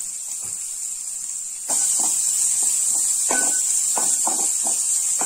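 Chopped onions sizzling in hot oil in a wok, a steady hiss that gets louder about two seconds in. Several short scrapes follow as a wooden spatula stirs them against the pan.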